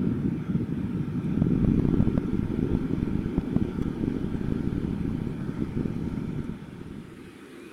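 Boeing 787-9 airliner's jet engines rumbling on the landing rollout: a loud, low rumble with faint crackling that fades near the end.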